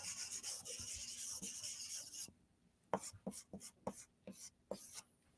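Thick, sidewalk-style chalk scraping across a chalkboard while drawing: one continuous scratching stroke of about two seconds, then a run of about nine short, quick strokes as the area is shaded in.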